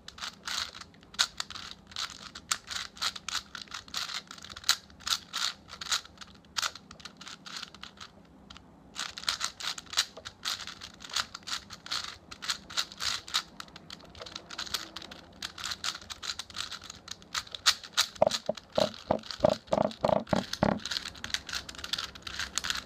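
Plastic 4x4 Rubik's cube being turned rapidly by hand: dense, irregular clicking and rattling of the layers with a short pause partway through. A brief run of quick, evenly spaced pulsing tones comes in about three-quarters of the way through.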